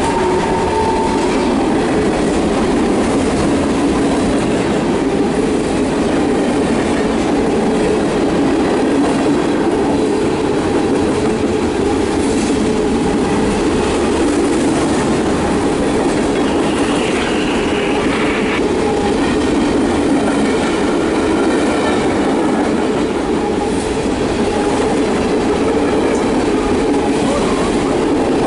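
Freight train of covered hopper cars rolling past at close range: steady rumble and clickety-clack of steel wheels on the rails, with a short high wheel squeal past the middle.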